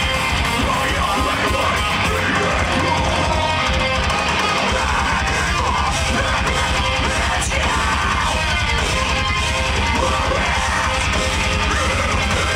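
A metalcore band playing live, with heavy distorted electric guitars over drums and bass, loud and unbroken throughout.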